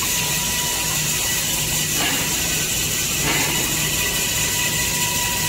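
Toilet paper making machine running: a steady mechanical hum under a constant high whine, with two short swells about two and three seconds in.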